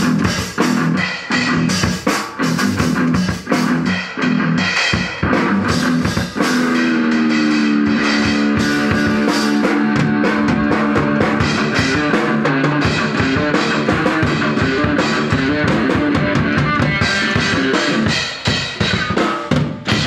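Instrumental rock music from a band: a drum kit and electric guitar. In the middle the drumming thins out under long held guitar notes that slide down in pitch, and the drums come back in strongly near the end.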